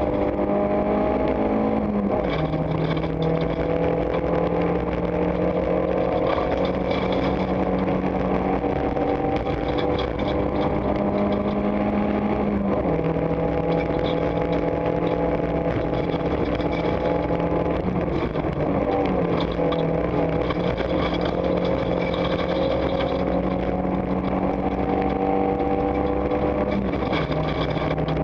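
Renault Mégane 1.6-litre rally car engine at full throttle, heard from inside the cabin: its pitch climbs slowly through each gear and drops sharply at the gear changes, three times, with one brief dip. Gravel crunches under the tyres and stones tick against the underbody.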